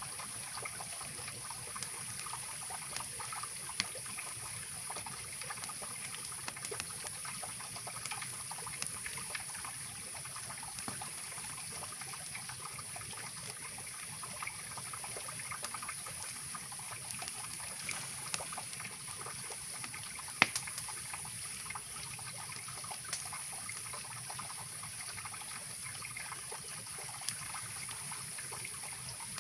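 Mountain river running steadily, with a campfire crackling over it in scattered sharp pops, the loudest about two-thirds of the way through.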